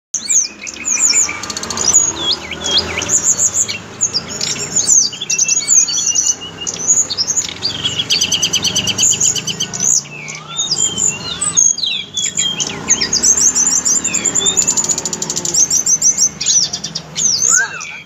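Tickell's blue flycatcher singing a long, varied song of high whistles, slurred glides and fast rattling trills, with only brief pauses.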